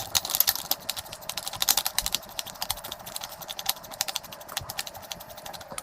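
Rapid, dense metallic clicking as the threaded lower section of a coilover shock is turned onto the shock body, one turn after another.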